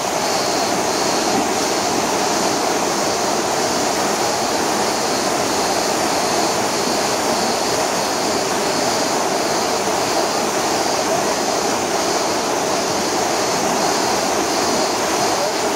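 Spring-fed mountain stream rushing over rocks: a steady, even roar of whitewater close by, with no change in level.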